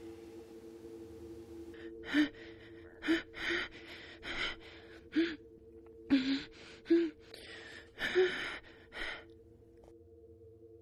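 A woman gasping and choking for air: about ten short, harsh, strained gasps, starting about two seconds in and stopping near the end. A low steady drone runs underneath throughout.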